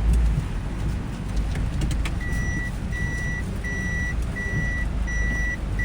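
A vehicle's reversing alarm beeping at one steady pitch, about one and a half beeps a second, starting about two seconds in, over the low rumble of an engine.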